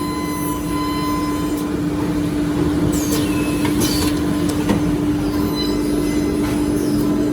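Bamboo toothbrush handle milling machine running with a steady hum and a noisy mechanical rush. High squealing screeches come about three to four seconds in, with a few sharp clicks.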